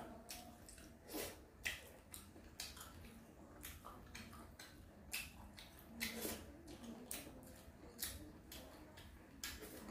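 A person eating boiled fish: faint, irregular wet chewing and lip-smacking clicks, several a second at times.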